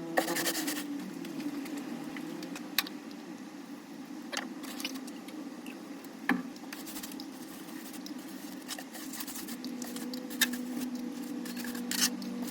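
Small handling sounds: scattered light clicks and taps with short scratchy rustles, over a steady low hum.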